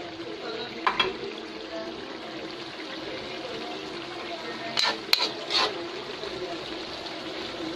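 Pot of cassava leaves simmering with a steady bubbling, with a few sharp clicks about five seconds in as a spatula comes into the pot.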